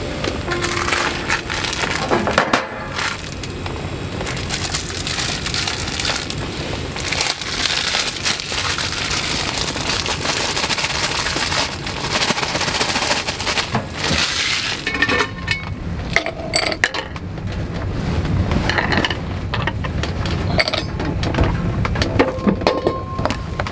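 Food sizzling in a hot skillet, a dense hiss with crackles, as udon noodles go in. In the last several seconds the hiss thins into separate sharp clicks and cracks, with ice clinking in a glass.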